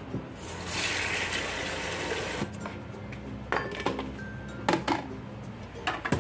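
Tap water running into a rice cooker's inner pot for about two seconds. After it come several sharp knocks and clinks as a plastic steamer tray and a bowl are set into the cooker, over background music.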